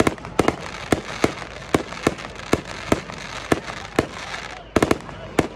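Aerial fireworks shells bursting in a rapid string of sharp bangs, about three a second, with crackling between them and a quick cluster of bangs near the end.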